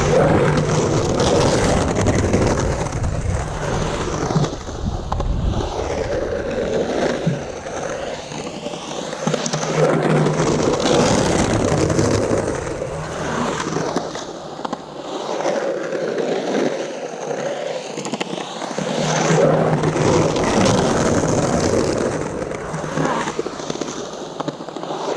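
Santa Cruz Slime Balls 97a urethane skateboard wheels rolling and carving on a concrete bowl: a continuous wheel roar that swells louder and fades several times as the rider runs through the bowl.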